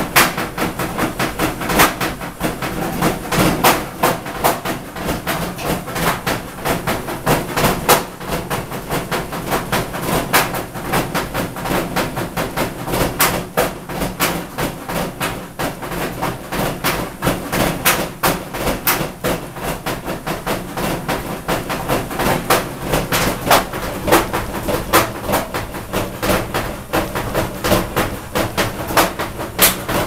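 Front-loading washing machine running with a fast, uneven run of knocks and clatter throughout, a drum-like banging from inside the machine.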